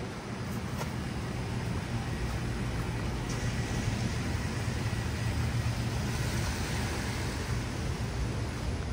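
A car passing on a rain-wet city street, its engine and tyre noise growing louder over the first few seconds and easing slightly near the end.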